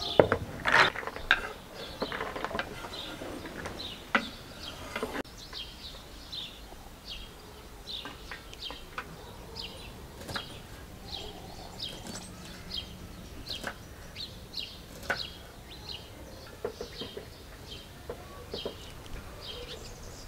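Small bird chirping over and over in short high notes, about one or two a second, with scattered clicks and knocks of food preparation, busiest in the first few seconds.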